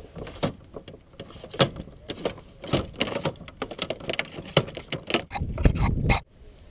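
Irregular clicks, knocks and clatter of gear being handled on a sit-on-top fishing kayak, with a low rumble building near the end that cuts off abruptly.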